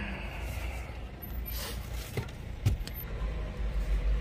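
Background inside a car's cabin: a steady low rumble with two sharp clicks a little over two seconds in, about half a second apart.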